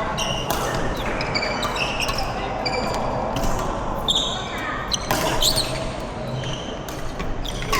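Badminton doubles rally: sharp racket hits on the shuttlecock at irregular intervals and short, high shoe squeaks on the court floor, with players' voices in the background.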